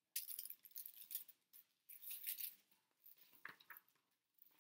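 A hardcover picture book being opened and its pages handled: a string of soft, irregular rustles and papery scrapes.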